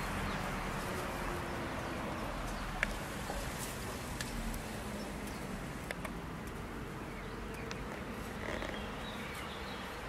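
Steady outdoor ambience around a flock of resting Brahma hens, with a low buzzing drone and a few faint clicks.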